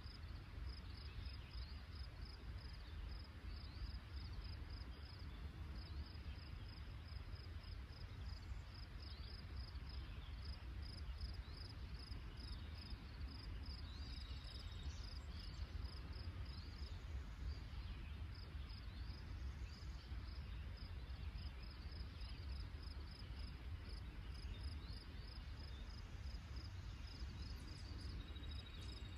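Rural trackside ambience: insects chirping in a steady, evenly pulsing high rhythm, with a few faint higher chirps over it and a low steady rumble underneath.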